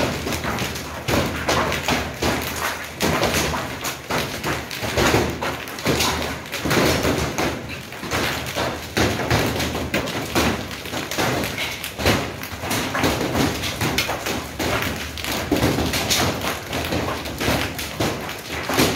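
Heavy hail falling: a dense, irregular clatter of thuds and taps as hailstones strike wet paving and garden pots.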